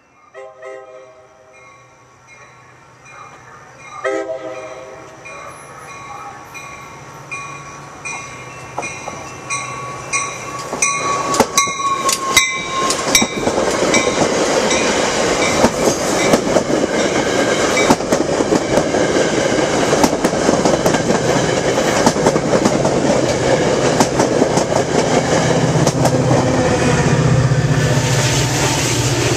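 Two short toots on a multi-chime K5LA locomotive horn, then an EMD F40PH-powered Metra bilevel passenger train passing close: steel wheels clattering over the rail joints in a rising, steady rush, with the diesel locomotive's low engine drone growing near the end as it pushes past.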